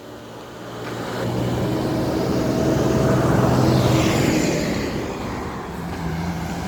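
A motor vehicle driving past on the street, its engine hum and tyre noise growing louder to a peak midway and then fading.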